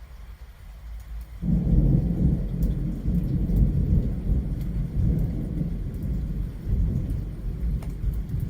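Thunder: a sudden loud clap about one and a half seconds in, followed by a long low rumble that slowly eases off, with rain falling.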